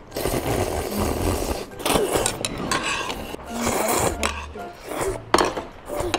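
People slurping noodles from bowls of noodle soup in repeated noisy sucks, over background music.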